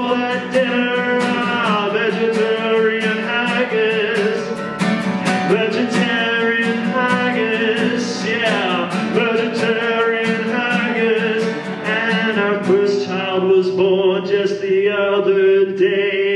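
A man singing with his own strummed guitar, held sung notes over steady strumming.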